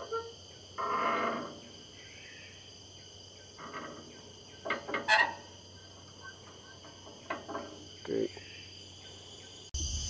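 Steady high-pitched drone of forest insects, with a few short knocks and clunks over it, the loudest about a second in and about five seconds in.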